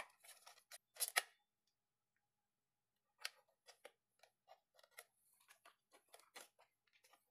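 Clear plastic packaging crinkling and clicking as it is handled and opened: two sharp crackles about a second in, then after a short pause a run of small, quick crinkles.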